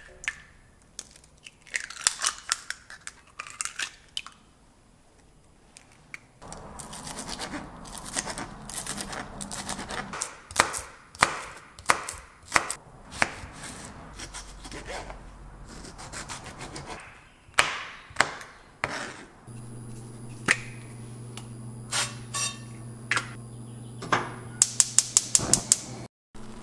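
Kitchen food-prep sounds: eggs cracked into a glass bowl and beaten, then a knife slicing a tomato on a cutting board, heard as scattered clicks and knocks. About three-quarters through a low steady hum comes in, and near the end a quick run of sharp clicks as a gas stove burner is lit.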